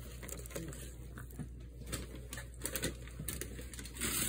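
Scattered small clicks and crinkles of a clear plastic takeout container and food being handled, over a faint steady low hum, with a brief louder rustle near the end.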